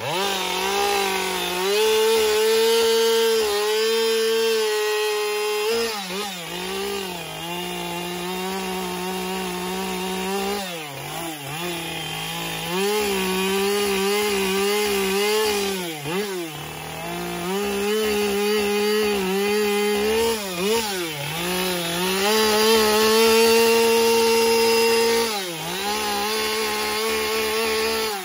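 Husqvarna two-stroke chainsaw cutting into an upright log. The engine holds high revs through each cut, then drops off briefly and revs back up, about every five seconds.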